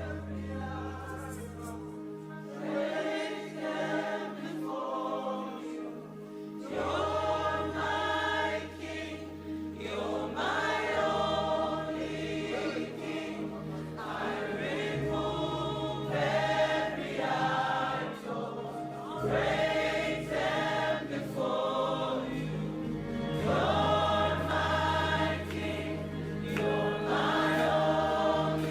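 A group of voices singing a slow worship song together over sustained low chords that change every few seconds.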